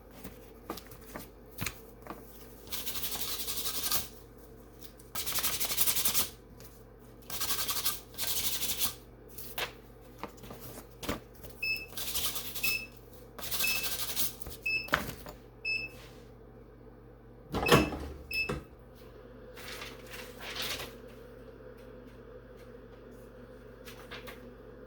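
Several short bursts of rustling and handling noise, then a string of short high electronic beeps from the heat press timer signalling the end of the press, followed by a loud clunk with a brief squeak as the press is opened.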